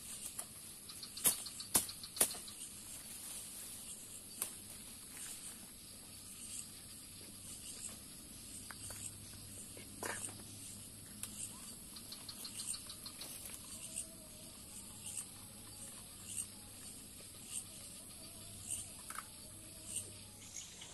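Night-time tropical forest insect chorus, a steady high-pitched trilling with bouts of rapid ticking. Over it come scattered sharp clicks and rustles of gear and undergrowth being handled, the loudest about a second or two in.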